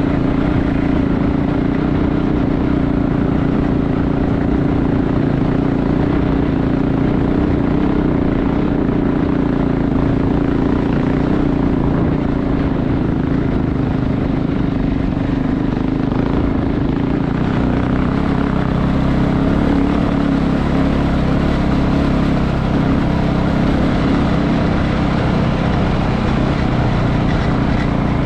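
KTM 690 Enduro's single-cylinder engine running steadily while riding, a constant drone.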